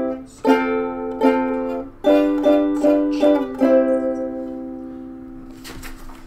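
Ukulele strumming a short run of chords, the last chord left ringing and dying away. Near the end, a book page is turned with a brief paper rustle.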